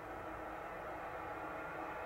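Class 90 electric locomotive drawing slowly into the platform: a steady hum with a few held tones that grows slowly louder, under the hiss of an old tape recording.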